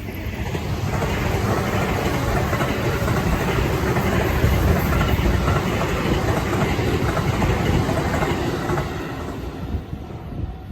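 A train passing over a level crossing: its running noise builds over about two seconds, stays loud, then fades away near the end.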